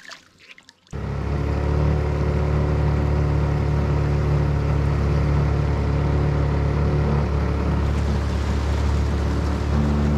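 Outboard motor of a small aluminium boat running steadily under way. It comes in abruptly about a second in.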